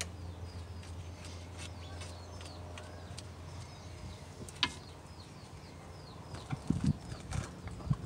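Quiet hand work on a rear disc-brake caliper: a single sharp metallic click about halfway and a few low knocks near the end as the caliper and bolt are handled. Behind it run a steady low hum and small birds chirping over and over.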